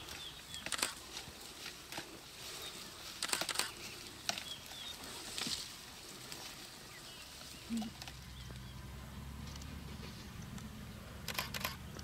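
Cape buffalo browsing on a bush, tearing at the leaves and twigs: several sharp rustles and crackles of foliage, with faint bird chirps. A low steady hum comes in about two-thirds of the way through.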